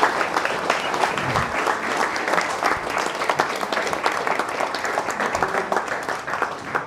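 A roomful of people applauding steadily.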